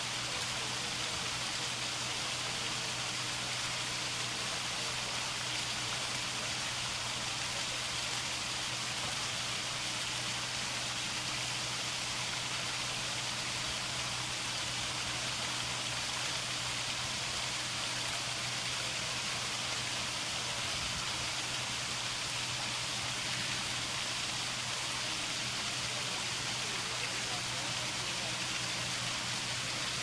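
Water of a man-made stone waterfall fountain splashing down over stacked rock blocks, a steady even splashing that does not change.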